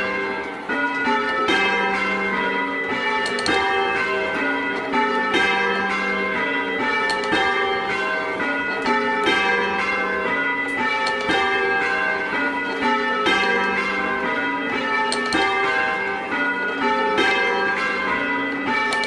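A clonky, old-fashioned ring of six church bells (11 cwt tenor, in G) rung full circle in English change-ringing style. The strokes follow one another in a steady, even rhythm without a pause.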